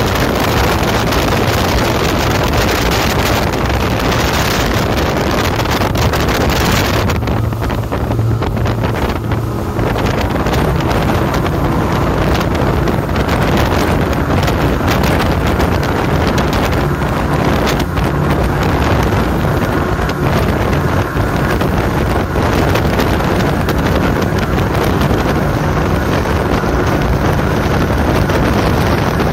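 Three Evinrude E-TEC G2 300 two-stroke V6 outboards running hard at speed, a steady engine drone under loud wind rushing over the microphone and the hiss of the wake.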